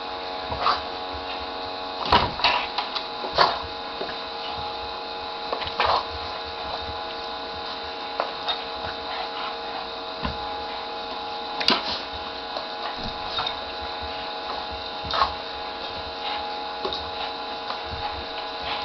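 Small electric motor of a bubble machine running with a steady hum, with irregular short clicks and knocks over it.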